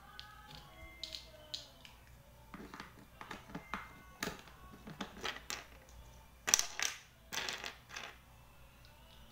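Plastic toy building bricks clicking and clattering as they are handled and pressed together on a tabletop, in a run of short knocks with the loudest clatter about six and a half seconds in.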